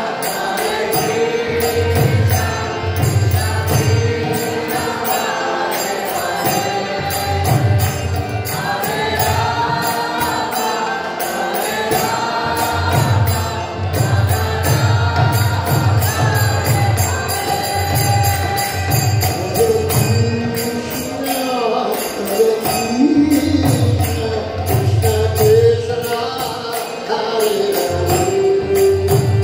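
Hindu devotional kirtan chanting sung over a DJ-style electronic beat, with a steady bass beat and jingling percussion keeping time.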